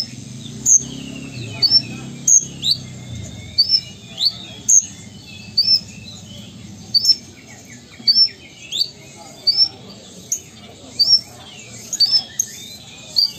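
Kolibri ninja (Van Hasselt's sunbird) singing persistently: a steady run of short, sharp, high chirps, about three every two seconds.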